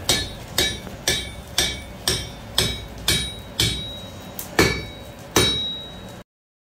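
Blacksmith's hand hammer striking red-hot iron on an anvil, about two blows a second, each with a bright metallic ring. After a short pause about four seconds in come two more blows, then the sound cuts off suddenly.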